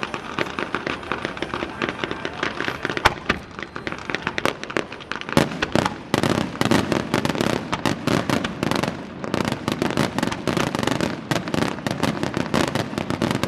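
Fireworks display: a dense, rapid crackle of many small bursts, with sharp louder bangs about three and five seconds in, then crackling even more thickly for the rest of the time.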